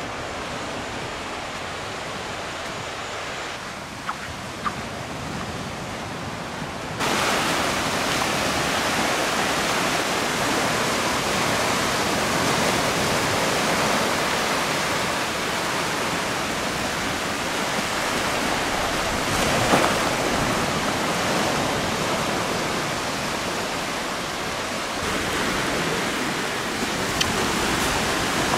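Steady rushing noise of small Gulf waves breaking and washing up the beach. It is quieter for the first few seconds, with two light knocks about four seconds in, then turns abruptly louder and fuller about seven seconds in and stays that way.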